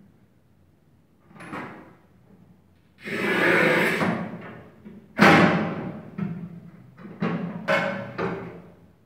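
Manual tile cutter scoring a floor tile: the scoring wheel scrapes along the tile for about a second, starting about three seconds in, then a sharp crack as the tile is snapped along the score line. Several lighter knocks follow as the cut pieces are handled on the cutter's rails.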